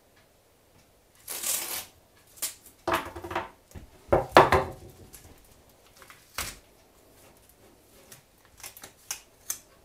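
Masking tape pulled off the roll in short rasping tears as it is wrapped around a wooden rifle stock, with paper rustling. About four seconds in comes the loudest sound: a knock as the stock is laid down on a paper-covered worktop.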